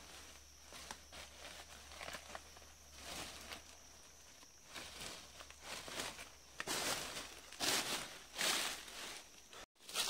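Footsteps and the crackle and rustle of dry leaves, twigs and brush underfoot and against the body as someone pushes through thick undergrowth. It is light at first and grows louder about two-thirds of the way in, with a few heavy crunches.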